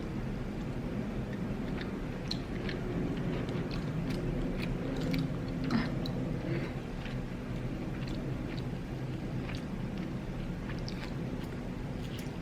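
A person chewing and biting food close to the microphone, with many short scattered mouth clicks.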